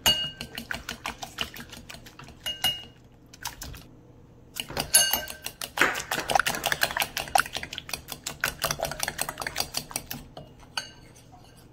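Metal spoon clicking rapidly against the side of a bowl as egg, milk and flour are beaten into a batter. There is a short pause about three and a half seconds in, then a faster run of strokes that stops near the end.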